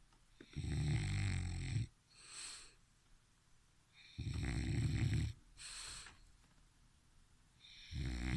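Bulldog snoring in its sleep: a loud, rumbling snore about every three and a half seconds, each followed by a softer, hissing breath.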